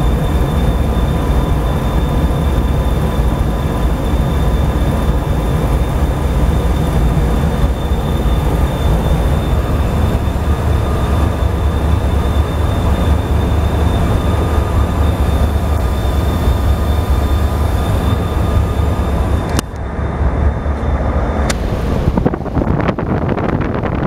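Packaged outdoor heat pump running: a steady low hum from the compressor and condenser fan, with a faint high whine that stops suddenly with a click near the end.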